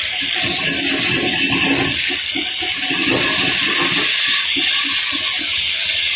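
A loud, steady rushing hiss with irregular low knocks and rumbles underneath.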